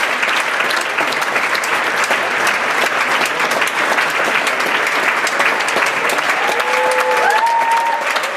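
Audience applauding steadily in dense, continuous clapping. Near the end a brief pitched cheer from the crowd rises above the clapping.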